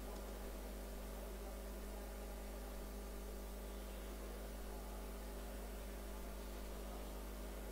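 Steady electrical mains hum with an even hiss. No thuds of darts or other sudden sounds cut through it.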